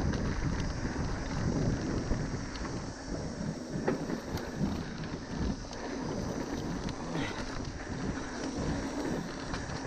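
Wind buffeting the microphone over an uneven rumble and scattered knocks and rattles from a bike riding an enduro trail at speed.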